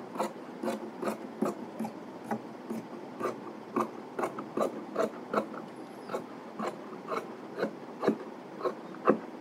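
Large tailor's shears cutting along the edge of trouser fabric laid on a cutting table, each closing of the blades a crisp snip at a steady rhythm of about two snips a second.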